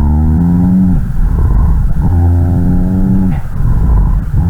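Rhonchi (類鼾音) heard through a stethoscope: a low-pitched, snoring musical sound that comes with each breath, about a second long and roughly every two seconds, falling in pitch as each one ends. It is a continuous adventitious lung sound, typical of secretions in the larger airways.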